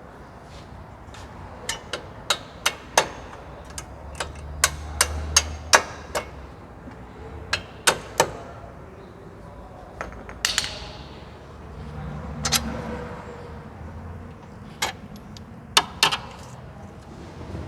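Hammer tapping on the steel stabilizer link bolt of a car's front suspension to knock it loose. The sharp metal strikes come in a quick irregular run over the first several seconds, then a few more near the end.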